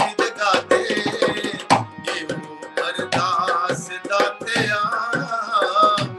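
A Punjabi devotional song: a man sings a wavering, ornamented melody, accompanied by a dholak drum and a keyboard.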